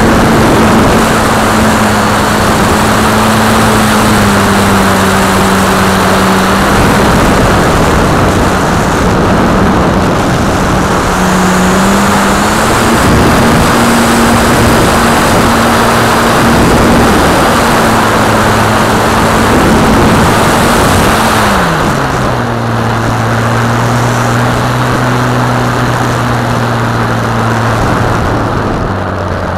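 Multiplex FunCub's electric motor and propeller running in flight, heard from a camera on the plane itself under heavy rushing air noise. The drone shifts in pitch with the throttle, dropping sharply a little past two-thirds of the way through as the power is pulled back.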